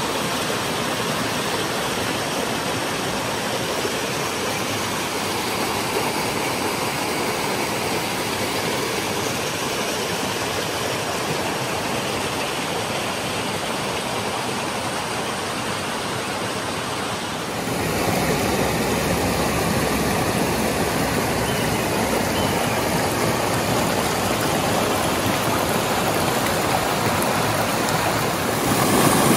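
Stream water flowing in a steady rush. About two-thirds of the way in it cuts abruptly to a louder, deeper rush, which steps up again just before the end.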